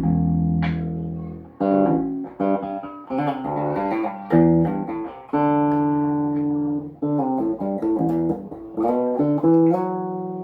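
Golden electric bass played in a melodic phrase of plucked notes, checked after a service. Some notes are left to ring for a second or more, and the last one, near the end, fades out slowly.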